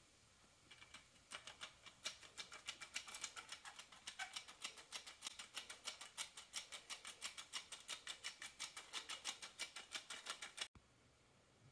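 Metal squeeze-handle flour sifter being worked over a cake, its handle and agitator making rapid, even clicks, about six a second, as ground cinnamon is shaken through the screen. The clicking stops abruptly about a second before the end.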